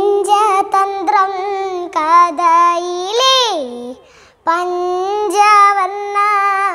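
A young girl singing an old Malayalam song without accompaniment. She sings two long phrases of held notes, each ending in a rising-then-falling flourish, with a short breath between them about four seconds in.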